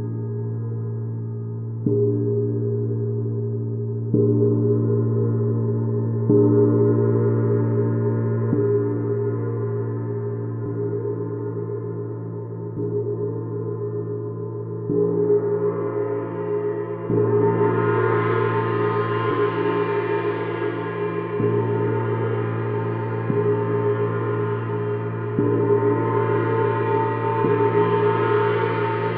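Paiste Sidereal Moon gong played with soft strokes about every two seconds, so its low hum rings on without a break. From about halfway through, its brighter upper overtones swell into a shimmer.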